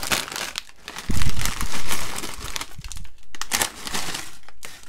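Crinkling of a Sun Chips bag as it is pulled open, with a loud, dull thump about a second in. Near the end the chips are poured out and rattle onto the paper wrapper.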